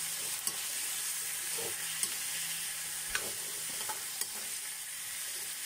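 Raw pork ribs sizzling in hot oil in a wok with sautéed garlic and onion, stirred with a metal spatula. The steady sizzle is broken by a few sharp clicks of the spatula against the pan.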